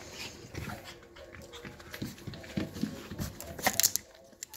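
Yorkshire terrier puppies snuffling and scuffling right at the microphone, with soft rustles and bumps. A loud, brief scrape comes near the end as one puppy pushes its nose against the phone.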